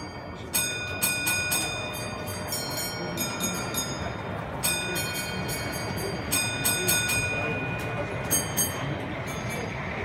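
Model train running on the layout: bursts of quick metallic clicks with a light ringing, heard over the steady murmur of an exhibition hall.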